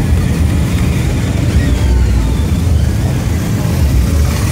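Cars and police motorcycles cruising slowly past, their engines making a steady, loud low rumble.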